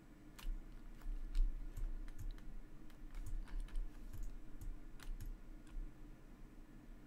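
Irregular clicking and tapping on a computer keyboard: about fifteen sharp key clicks over five seconds, several with a dull low knock under them, starting about half a second in and stopping about six seconds in.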